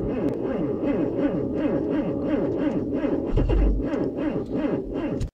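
Renault Logan's engine being cranked by the starter motor in an extreme-cold start at about −33 °C, turning over with an even rhythmic beat but not catching, then stopping abruptly. There is a brief low thump about three and a half seconds in. The failed start is put down by the owner to a battery that has weakened a little.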